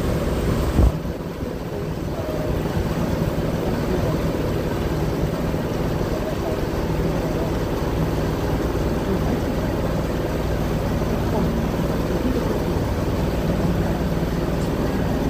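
Boat engine running steadily under way, a constant low hum with a short thump just under a second in.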